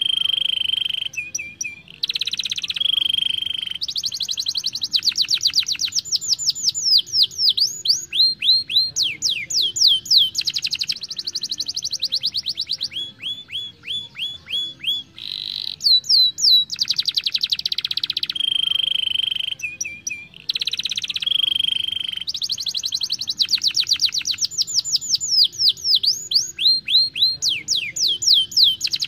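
Domestic canary singing a continuous song of rapid trills, fast runs of downward-sweeping whistled notes and short repeated-note phrases, with the same sequence of phrases coming round a second time about halfway through.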